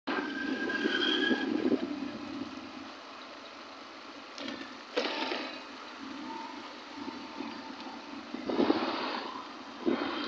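Road traffic heard while riding a motorcycle along a busy city flyover: steady engine and road noise, with louder surges as vehicles pass about a second in, at about five seconds and near the end. Brief horn-like tones sound early on and again around the middle.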